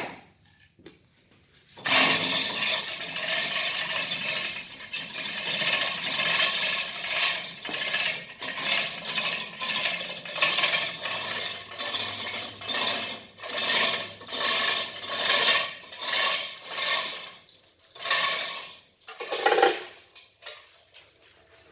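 Metal scraping and clinking in repeated uneven strokes, starting abruptly about two seconds in and running most of the way, with a last short burst near the end.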